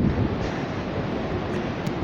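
Wind buffeting the microphone: a steady rumbling rush of noise, with two faint ticks near the end.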